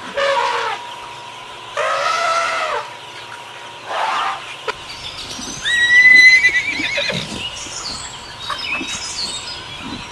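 A horse neighing several times. The loudest whinny, about six seconds in, ends with a quavering pitch.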